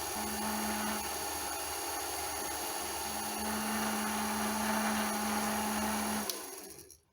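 Metal lathe running, with a 0.75 mm drill bit in a drill chuck boring into a spinning brass rod; a steady hum comes and goes as the bit works. The lathe is switched off about six seconds in and runs down to silence.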